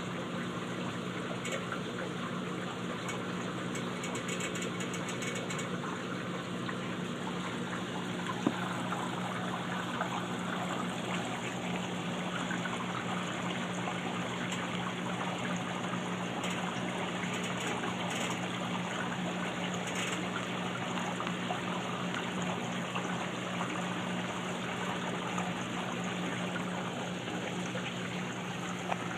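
Aquarium filter running: a steady rush of moving water over a constant low hum, with one short click about eight seconds in.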